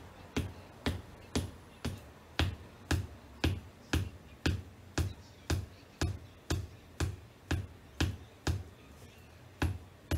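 Wedge-heeled ankle boots tapping on a hardwood floor in a steady, even beat of about two taps a second, each tap a low thud with a sharp click.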